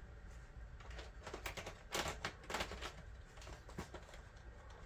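Scattered light plastic clicks and knocks as a replacement Dell laptop battery pack is handled and positioned against the laptop, with the loudest knock about two seconds in.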